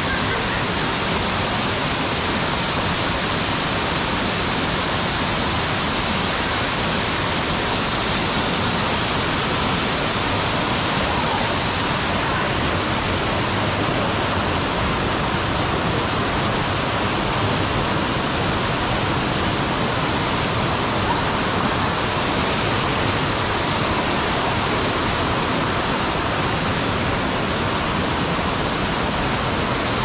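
Waterfall pouring: a steady, even rush of falling water with no breaks.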